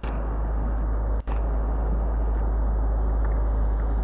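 Steady low outdoor rumble, broken by two brief dropouts: one at the very start and one just over a second in.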